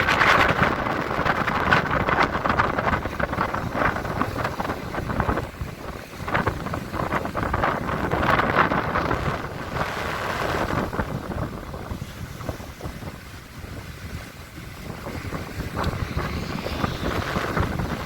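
Sea waves surging and washing at high tide, rising and falling in loudness, with wind buffeting the microphone.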